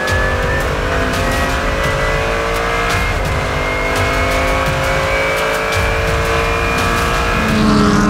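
Mercedes-AMG GT3 race car's V8 engine heard from inside the cockpit, pulling hard down a straight with its pitch climbing slowly. Sharp ticks run through it.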